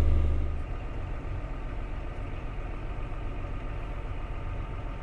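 Heavy farm vehicle engine running steadily; a deep low hum drops away about half a second in, leaving a quieter, even engine drone.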